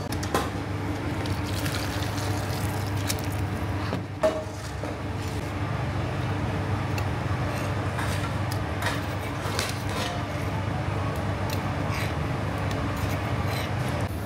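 Restaurant kitchen background: a steady low hum under scattered clinks and knocks of metal utensils and pots, with one sharp knock about four seconds in.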